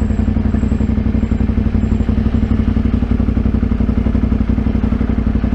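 Motorcycle engine running at a steady, unchanging speed, its firing pulses even throughout.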